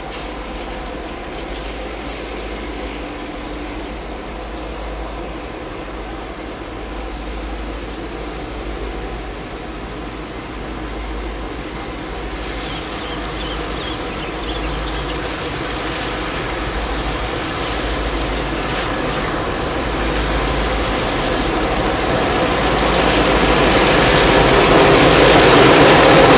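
Triple-headed CC 202 (GE U20C) diesel-electric locomotives running as they approach on a long coal train. The engine sound stays steady and grows louder until the lead units pass close by near the end.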